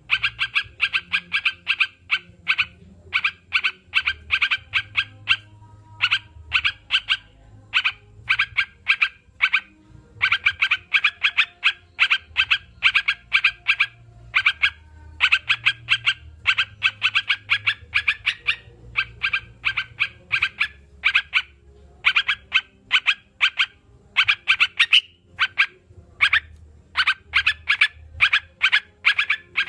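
Crucukan (yellow-vented bulbul) singing in fast chattering phrases of short, sharp repeated notes, one phrase after another with brief gaps, over a faint low hum.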